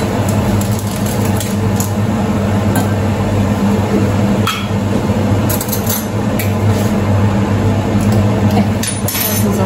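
Steady low hum and rushing noise from the stovetop as a pot of water boils. A few light clinks of a glass jar and spoon come in between.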